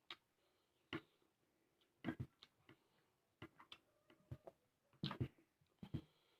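Quiet eating sounds: a scattering of short, sharp mouth clicks and smacks from chewing, about eight at irregular intervals.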